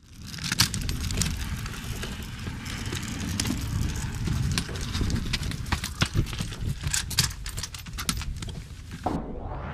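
Irregular clicks and knocks over a steady low rumble. Just before the end a falling electronic sweep begins, leading into the music.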